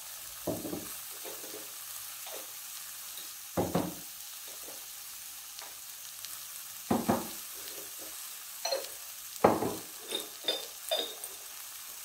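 Dried red chillies and onion frying in a little oil in a metal kadai: a faint steady sizzle, with about nine irregular scraping strokes against the pan and a few light metallic clinks near the end.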